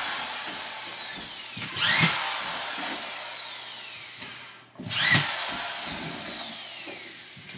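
Corded drywall screw gun driving screws along the bottom edge of a drywall sheet. The motor whines up sharply about two seconds in and again about five seconds in, each time winding down slowly with a falling pitch, and revs up once more right at the end.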